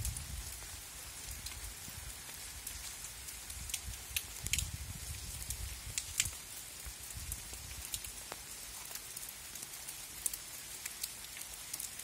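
Steady rain falling on leaves and soil, with many single drops ticking sharply close by, and a low rumble that swells and fades at times.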